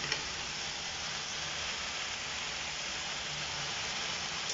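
Steady hiss of pinakbet vegetables and pork sizzling in a wok over a lit gas burner, with one light click just after the start.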